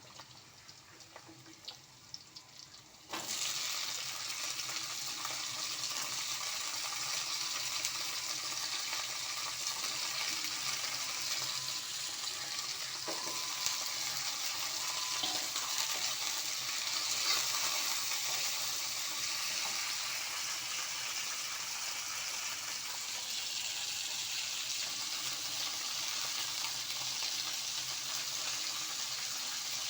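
Food sizzling in hot oil in a frying pan or wok, starting suddenly about three seconds in as the food meets the oil, then a steady crackling sizzle. A few light clicks come before it.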